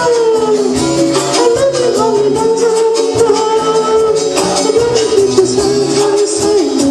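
Upbeat recorded song playing: a held, wavering melody line over a steady bass pattern and regular high percussion ticks.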